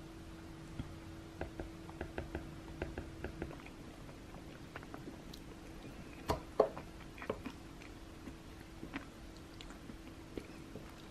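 A person chewing a bite of brown-rice-flour sweet-pumpkin bread, with scattered small clicks and taps, a couple of sharper ones a little past the middle, over a faint steady hum.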